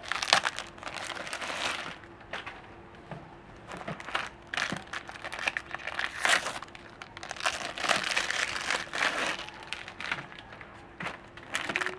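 Thin plastic wrappers on long corn wafer-roll cookies crinkling and tearing as they are peeled off by hand, in irregular bursts with short pauses between.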